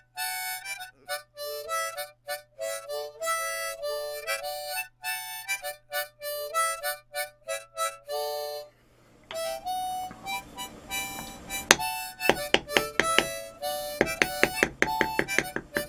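Harmonica music playing a melody, breaking off briefly a little past halfway. In the last few seconds, quick sharp taps sound among the notes, fitting a mallet striking a leather beveler stamping tool.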